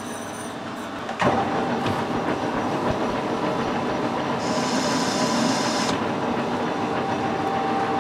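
Metal lathe running, then about a second in the cutting tool bites into the spinning steel workpiece and the sound jumps to a loud, steady cutting noise of tool on metal. A higher hiss rides on it for a second or two in the middle, and the cut eases off near the end.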